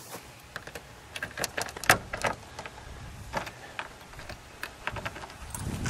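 Keys jingling with a few sharp clicks, the loudest about two seconds in, as the trunk of a 1960 Chrysler 300F is about to be opened.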